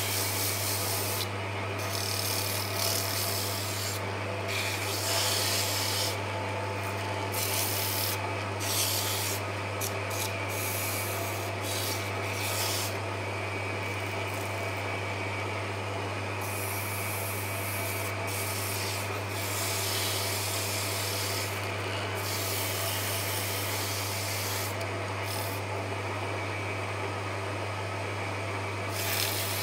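Wood lathe running with a steady low hum while a turned spindle spins. Loose wooden captive rings on it rub and scrape against the turning wood and the hands holding them, coming and going in hissy stretches.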